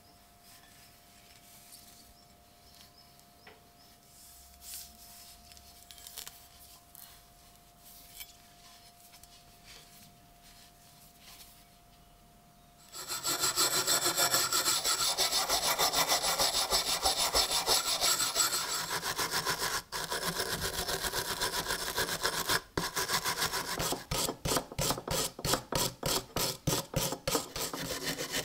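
Hand wire brush scrubbing rust off a rusty steel axe blade, a loud scratchy rubbing that starts abruptly about halfway through after faint taps. Near the end it breaks into short quick strokes, about three a second.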